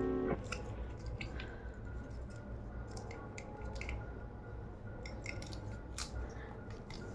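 Scattered small clicks and taps from a smartwatch and its packaging being handled, over a steady low hum. Piano music cuts off just after the start.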